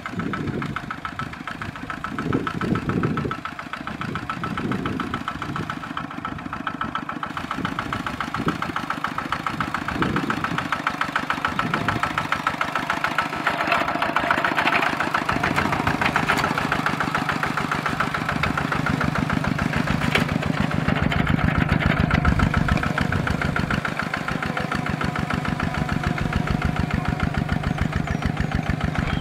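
Kubota RT140 single-cylinder diesel on a two-wheel walking tractor, running steadily under load as it pulls a plow through paddy mud, with a fast, even chugging that grows somewhat louder about halfway through.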